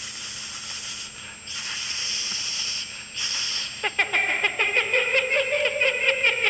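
Three long hisses, then, about four seconds in, a drawn-out creak made of rapid clicks at a steady pitch: a door creaking open.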